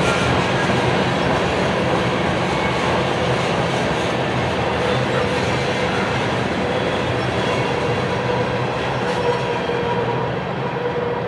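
Freight train tank cars rolling past, their steel wheels clattering steadily on the rails, with a thin, steady squeal over the rumble. The sound eases off slightly near the end as the last car goes by.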